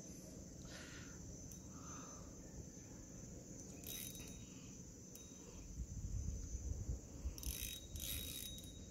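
Faint, steady insect chirring from the riverside jungle, with a few short clicks and a low rumble past the middle.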